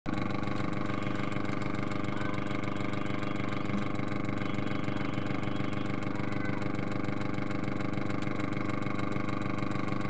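Homemade motor-generator rig running: an electric motor coupled shaft to shaft to a second motor, spinning steadily with a constant whirring hum and a fast, even flutter.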